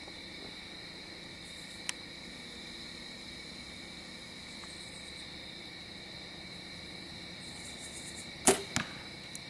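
Crickets chirping steadily at dusk. About eight seconds in, a bow is shot with a sharp crack, and a fainter hit follows a moment later as the arrow strikes the foam target.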